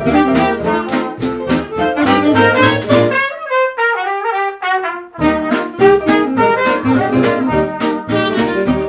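Upbeat background music with a steady beat. About three seconds in, the beat and bass drop out for two seconds while a falling melody carries on alone, then the full band comes back in.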